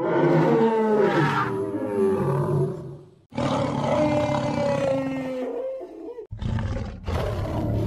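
Three dinosaur roar sound effects in a row, each a long, wavering roar of two to three seconds, the third starting about six seconds in.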